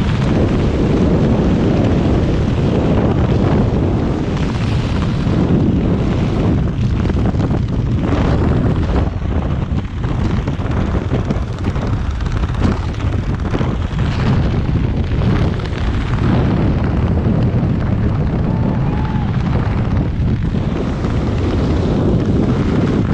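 Loud, steady wind rush buffeting the camera microphone during a tandem skydive freefall.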